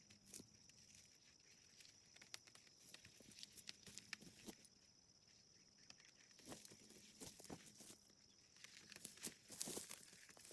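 Near silence: faint scattered ticks and rustles over a faint, steady high-pitched tone, with a few louder clicks near the end.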